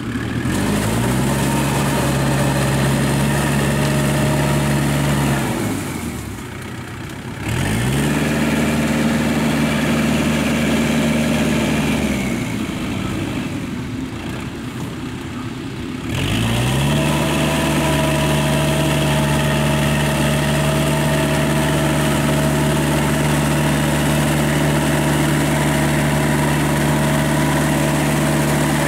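Kubota L5018 tractor's diesel engine running under load with a rotary tiller churning a wet paddy field. The engine revs up and holds steady, drops back toward idle twice, about six and about thirteen seconds in, and revs up again after each drop.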